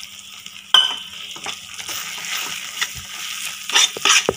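Steel slotted spatula stirring and scraping thick, nearly finished carrot halwa in a pan, mixing in cardamom powder, over a light hiss. It knocks sharply against the pan about a second in and several times near the end.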